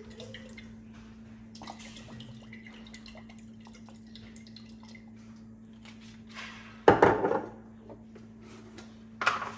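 Faint drips and small handling sounds as olive oil is drizzled from a glass bottle over eggplant slices, over a steady low hum. About seven seconds in comes a sharp knock, the glass bottle set down on the granite counter, and a smaller clunk near the end.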